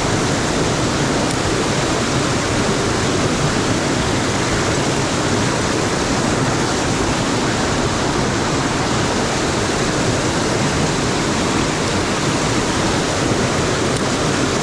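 Mountain stream water rushing loudly and steadily over rocks, an even roar with no break.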